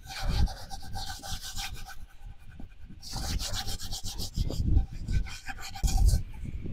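A hand scrubbing the outside of an aluminium cooking pot with wet sand, a gritty rasping rub in repeated strokes. Gusts of wind rumble on the microphone.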